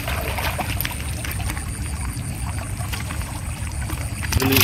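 Fish being handled in a plastic bucket: a low rumble of handling noise with scattered light knocks, then a loud splash of water near the end.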